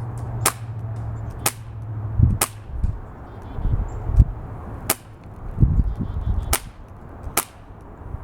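BB pistol firing six sharp snapping shots at uneven intervals, about one to two and a half seconds apart, with low rumbles between them.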